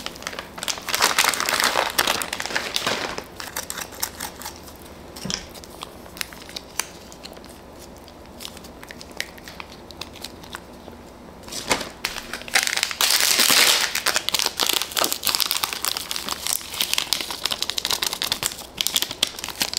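Plastic instant-noodle wrappers and seasoning sachets crinkling and tearing open, loudest in a long crinkling stretch about two-thirds of the way in.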